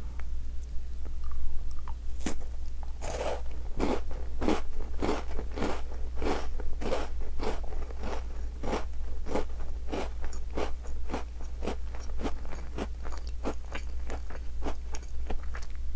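A chocolate-coated Tim Tam biscuit being eaten: one crisp bite about two seconds in, then steady crunchy chewing at about three chews every two seconds.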